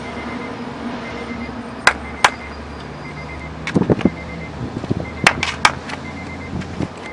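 Sharp clicks and a few dull knocks over a steady rumble, around a car with a faint chime beeping in short repeated groups.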